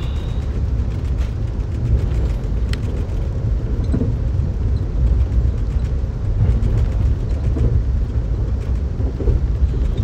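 Steady low rumble of an Amtrak California Zephyr passenger coach rolling along the rails at speed, heard from inside the car, with a few faint clicks.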